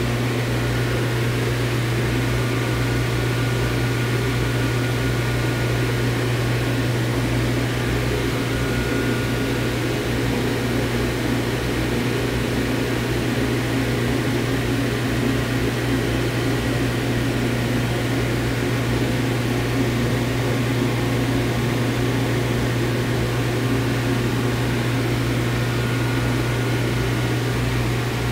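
Steady whir of cooling fans and air handling in an FM broadcast transmitter room, over a strong low hum, with a faint thin whine higher up.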